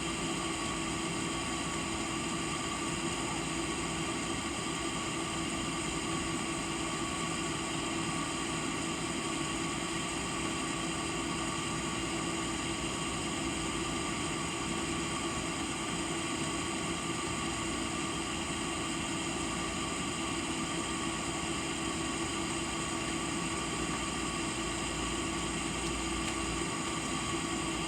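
Steady mechanical hum holding a few fixed tones, with no change in loudness.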